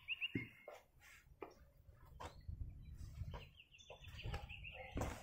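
Birds calling faintly: quick series of short high notes, one run just after the start and a longer one from about three seconds in, over a low rumble and a few scattered clicks.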